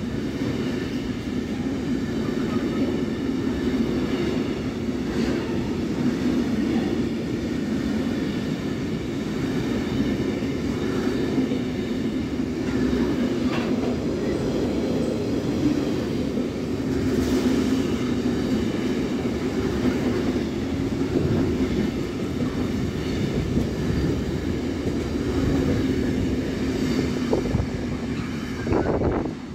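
Intermodal freight train's container and tank-container wagons rolling past at speed: a steady rumble of steel wheels on rail with a thin high ringing above it. The noise drops off as the last wagon passes, near the end.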